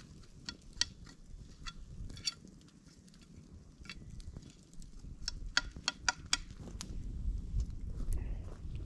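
Wood campfire crackling, with scattered sharp pops from the burning wood that come thickest a little past the middle.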